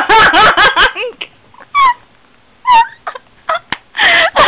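A young woman making short, high-pitched, squeaky mewing noises with her voice, with giggling mixed in: a run of quick sounds with sharply rising and falling pitch, a few lone squeals in the middle, and a fresh burst near the end.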